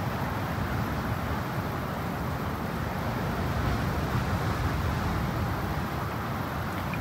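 Steady outdoor rumble and hiss with no distinct events, heaviest in the low end.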